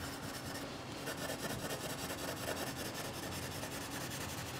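Soft, worn-down Caran d'Ache Luminance coloured pencil scratching across cold-press watercolour paper in quick, even hatching strokes.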